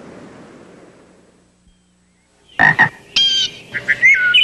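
A fading hiss dies to near silence, then from about two and a half seconds in come loud, repeated frog-like croaking calls with a few high pitched squeaks among them.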